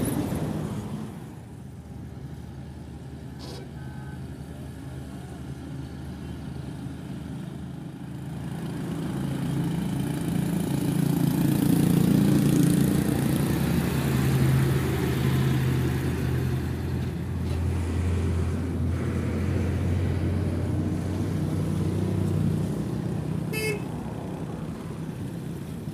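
Heavily loaded diesel trucks driving past on a highway. The engine note builds to a peak as one truck passes close, holds, and then eases off, with a short horn toot a few seconds in and another near the end.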